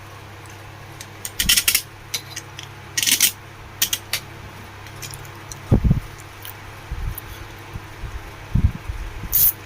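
Small metal screws and tools clinking against a table fan's metal motor body as the motor screws are put in, several sharp clinks with a couple of duller knocks over a steady low hum.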